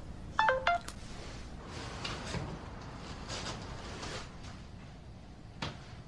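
Short electronic phone notification chime: a quick run of stepped beeps, about half a second in. Faint taps follow, with a sharp click near the end.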